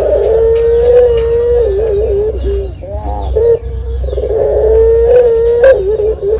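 Ringneck dove (puter) cooing the long drawn-out 'ngelik' call. A long, steady held coo ends in a wavering trill, then come a few short rising-and-falling coos and a second long held coo, over a low steady hum.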